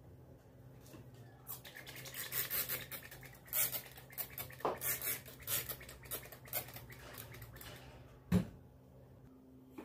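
Quick, irregular scraping strokes in the kitchen for several seconds, then a single sharp knock near the end.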